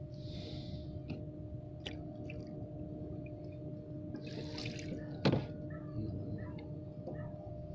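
Water dripping and splashing in small drops, with two brief hissing splashes and a sharp knock about five seconds in, over a steady low hum.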